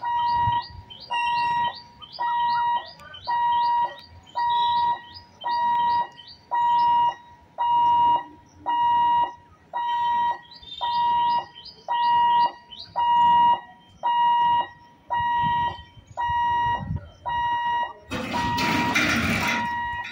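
Railway level-crossing warning hooter beeping steadily, one high electronic beep about every second, sounding while the crossing's boom barriers come down for an approaching train. A loud rushing noise swells near the end.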